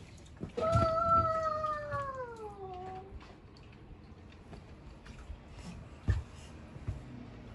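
A cat giving one long meow, about two and a half seconds, that falls in pitch toward its end. A single sharp knock comes about six seconds in.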